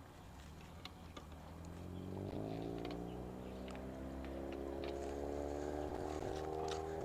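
An engine approaching, growing louder from about two seconds in, its pitch rising slightly as it comes, with a few faint clicks over it.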